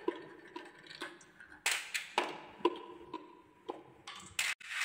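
Marble rolling through a wooden marble run: an irregular string of sharp wooden clicks and knocks, each with a brief ringing tail, the loudest near the end.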